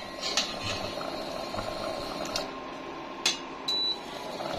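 A pot of rice boiling steadily on a stove, with a sharp click a little past three seconds and a short high tone just after.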